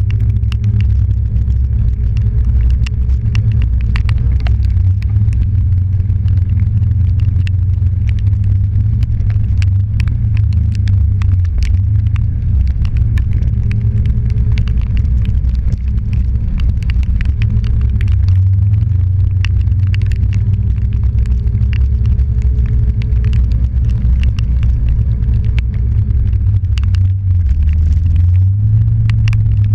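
Off-road vehicle's engine running steadily with a low rumble as it drives along a muddy trail, a faint whine coming and going and many sharp little ticks scattered throughout.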